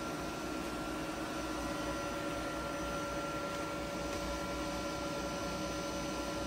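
Cooling fans in an open LDMOS HF amplifier running steadily: a crossflow fan and small 30 mm fans give an even airy hiss with a few steady whining tones over a low hum.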